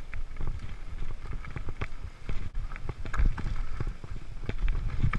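Mountain bike riding over a dirt singletrack: tyres rumbling on the dirt, with irregular rattles and knocks from the bike as it crosses bumps and roots.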